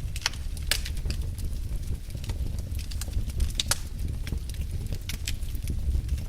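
Wood fire in a fireplace crackling, with irregular sharp pops over a steady low rumble.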